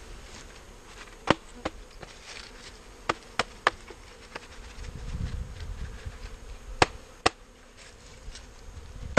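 Honey bees buzzing as a package of bees is shaken out into a hive floor, with several sharp knocks as the package box is banged to dislodge the bees.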